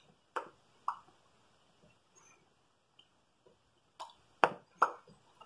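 Lips smacking and popping apart as freshly applied liquid lipstick is pressed and spread: two wet pops near the start, then three more in quick succession about four seconds in.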